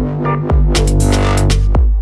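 Electronic dance music with a heavy, throbbing bass and hard drum hits.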